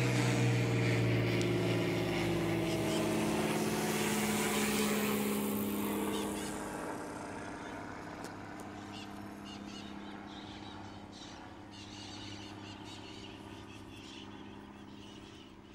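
Goosky S2 electric RC helicopter's rotor blades and motor running steadily in flight at a flat 65% throttle, a pitched whir with a slightly wavering tone. It fades away after about six seconds as the helicopter flies off into the distance.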